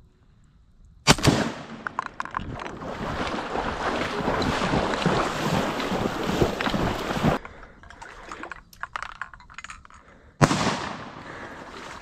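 Two shotgun blasts about nine seconds apart, the second one louder. Between them there is a stretch of rough rustling and handling noise.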